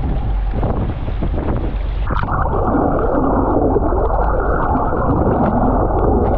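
Wind on the microphone and water washing along a boat's hull, then about two seconds in the sound abruptly turns muffled: rushing water and bubbles heard through a submerged camera.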